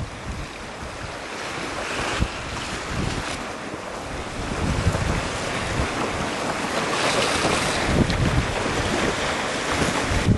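Strong, gusty wind buffeting the microphone with irregular low rumbles, over a steady rushing hiss of wind across choppy water.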